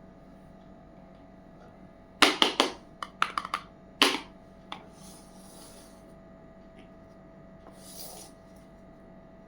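Small hard plastic toy kitchen pieces being handled: a quick run of sharp clicks and taps about two seconds in, ending in a single knock, followed by soft rustling twice.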